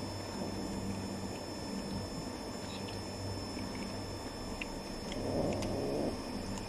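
Cats eating dry kibble from a bowl: faint small crunching clicks over a steady low hum. Just after five seconds in, a louder rough sound lasts about a second.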